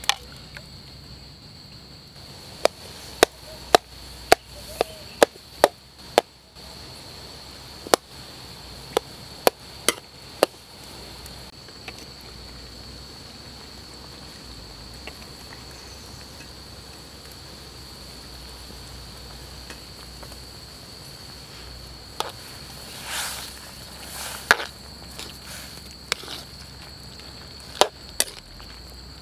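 Insects chirring steadily at a high pitch, with a run of sharp, irregular knocks in the first ten seconds and a few more in the last seven.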